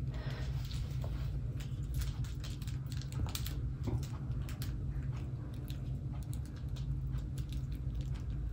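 Light, scattered clicks and taps from a long-coat miniature dachshund puppy moving about a hardwood floor with a plush toy in its mouth, over a steady low hum.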